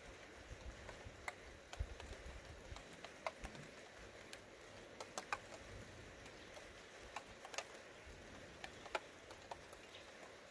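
Sparse raindrops ticking irregularly, roughly two faint clicks a second, over a quiet background at the start of a weak thunderstorm.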